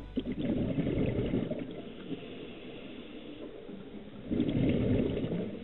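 Scuba diver breathing through a regulator, heard underwater: two bubbling exhalations of about a second each, with a softer hissing inhalation between them.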